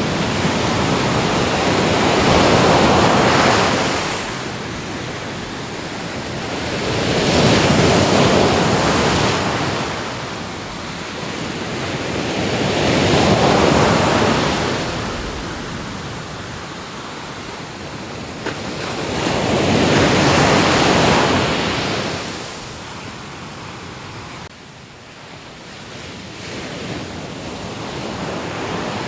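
Ocean surf: waves breaking and washing in, four swells rising and falling about every five to six seconds, then a quieter lull near the end.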